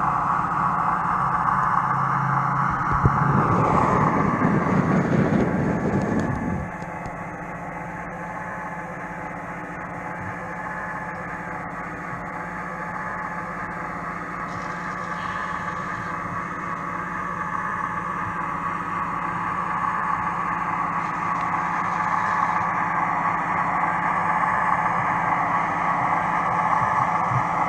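A model train running on layout track, its motor hum and wheel noise steady. It gets louder and rougher for a few seconds early on, drops back, then slowly grows louder again toward the end as it comes nearer.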